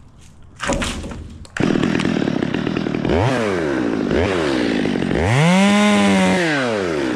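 Ported ("built") Stihl 020 two-stroke chainsaw starting up about a second and a half in and running at idle, then revved in two quick blips and once longer, held high for about a second and a half before dropping back to idle.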